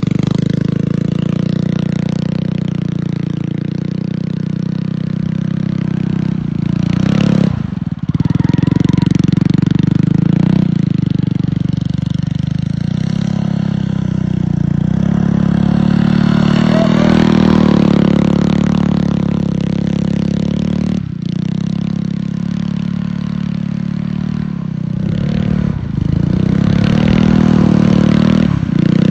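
Small engine of a stand-up tracked snow machine (a DTV Shredder) running under load, its pitch rising and falling as the throttle is worked, with a few brief dips where the throttle is let off.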